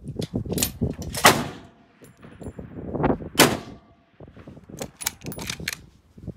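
Rifle shots: two loud shots about two seconds apart, each trailing off briefly, then a quick run of sharp clicks near the end, over a constant low rumble.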